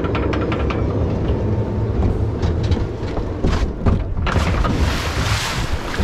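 Log flume boat rumbling along its track with scattered clicks and knocks, then entering the water channel about four seconds in with a sudden rushing splash that peaks a second later.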